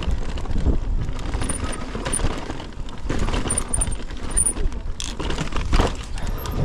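Mountain bike riding down a rough rocky trail: tyres rumbling over dirt and stone, with the chain and bike parts rattling and clicking over the bumps.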